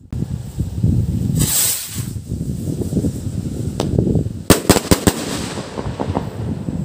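Homemade firework rocket going off: a short hiss about a second and a half in, then a single crack and, under a second later, a rapid burst of four or five loud sharp bangs. Heavy wind rumble on the microphone runs underneath.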